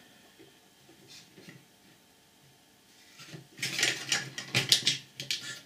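Plastic parts clicking, rattling and scraping as hands work components loose inside the opened plastic housing of a 12-volt air compressor. The handling noise starts about three seconds in, after a faint, near-quiet stretch, and comes as a quick run of sharp clicks.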